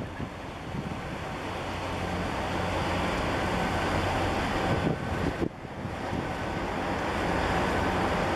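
Large bulk carrier passing close: a steady low hum from the ship's engine under the rushing churn of its propeller wash, with wind noise on the microphone. The sound dips briefly about two-thirds of the way through.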